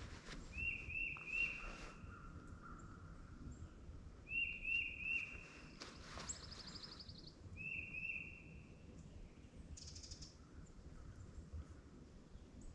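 A songbird repeats a short phrase of three or four quick whistled notes about every three seconds. A brief higher trill from another bird comes about six seconds in, over faint outdoor background noise.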